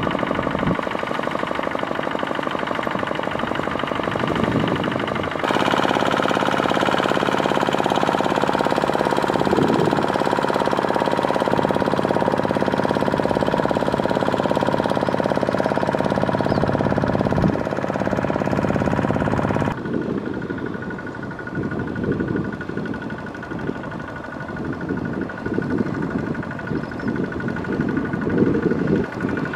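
Kubota ZT155 two-wheel walking tractor's single-cylinder diesel engine chugging under load as its cage wheels work through a muddy paddy field. The sound changes abruptly about five seconds in and again near the twenty-second mark, and is steadiest and loudest in between.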